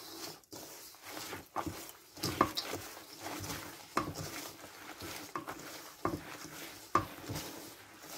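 Gloved hands squishing and kneading a thick, lumpy batter of brown sugar, flour, chopped pecans, butter and egg in a bowl: wet squelching with irregular soft slaps and knocks.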